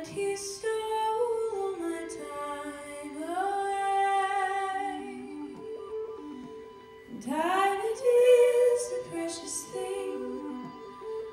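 Three women's voices singing unaccompanied in close harmony, holding long notes and sliding between them, with a short lull a little past halfway before the voices swell again.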